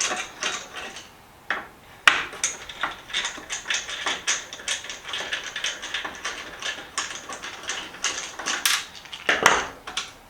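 Ratchet wrench clicking in short runs as a small nut is backed off a steel tool-box drawer, with a few sharper metal knocks and a louder clatter near the end.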